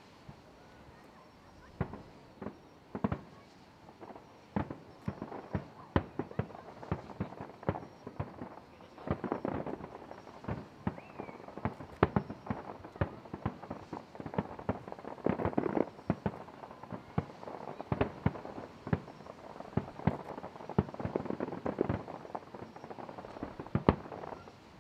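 Aerial fireworks shells bursting in quick succession, starting about two seconds in: dozens of sharp bangs that bunch into several dense volleys of bangs and crackle.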